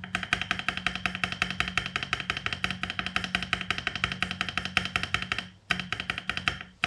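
Mechanical keyboard spacebar with an ASA-profile PBT double-shot keycap tapped rapidly over and over in a fast, even run of clacks with a slight ring, breaking off briefly twice near the end. It is a keycap sound test on a foam-lined keyboard.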